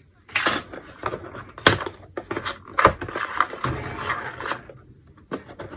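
Hands handling small packaging: irregular clicks, knocks and rustling as a USB charging cable is taken out of its packet.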